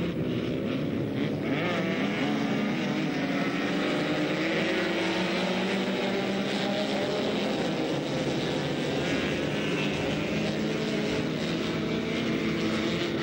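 Engines of several ice-racing sports cars running hard as they slide past on the ice, the engine pitch rising and falling as they rev and pass.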